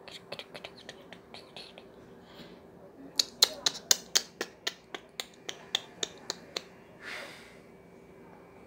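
Light pats of fingertips on skin, applying makeup. They are faint at first, then become a quick run of sharp slaps, about three to four a second, for a few seconds, followed by a brief soft hiss.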